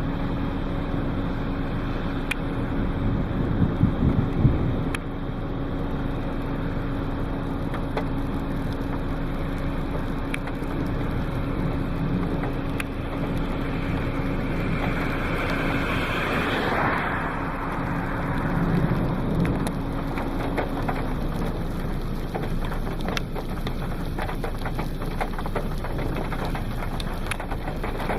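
Storm noise: steady wind and rain with a low steady hum that stops about three quarters of the way through. It swells louder about four seconds in, and a rushing sound sweeps up and falls away around the middle.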